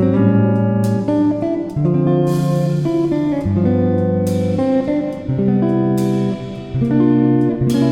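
Background music: plucked and strummed guitar playing a steady chord pattern.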